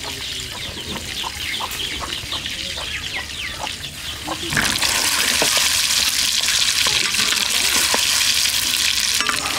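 Peeled boiled eggs frying in hot oil in an iron karahi: a softer sizzle at first, then a loud, steady sizzle from about four and a half seconds in as more eggs go into the oil.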